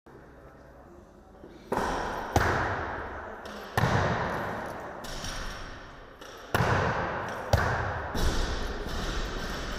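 Barbells with bumper plates hitting lifting platforms in a large training hall. There are about six heavy thuds, each one echoing and dying away over a second or so.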